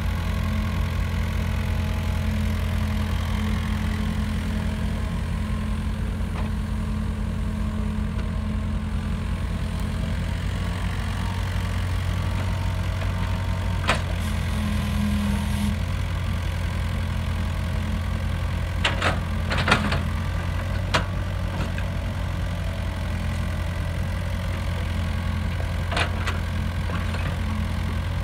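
Diesel engine of a tracked excavator running steadily, with a few sharp metallic knocks from the machine's working parts, a cluster of them about two-thirds of the way through.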